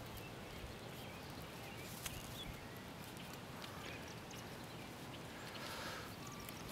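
Faint steady outdoor background noise with a light tick about two seconds in.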